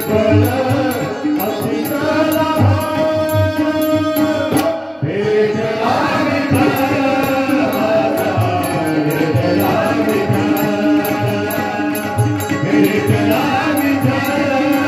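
Marathi devotional song to Vitthal: singing over held instrumental tones, with a regular tabla-like drum beat and steady high ticks. The music dips briefly about five seconds in.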